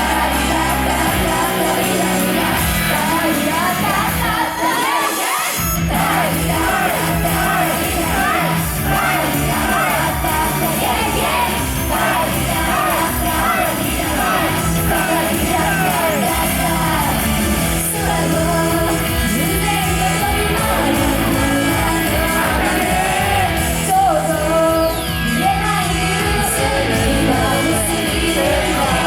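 A J-pop idol song performed live, with girls singing over a loud, steady pop-rock backing and shouts over the music. The bass drops out briefly about five seconds in.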